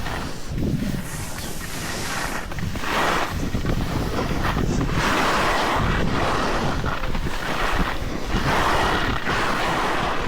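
Wind rushing over the microphone and a snowboard's edge scraping over packed snow, the scrape swelling in waves every two to three seconds as the board turns.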